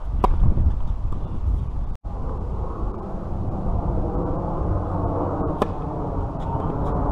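A tennis ball struck sharply by a racket, once about a quarter second in on a serve and again about five and a half seconds in, over steady wind noise on the microphone.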